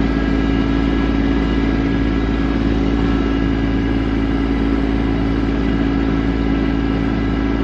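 Tractor engine running steadily at an even, constant speed.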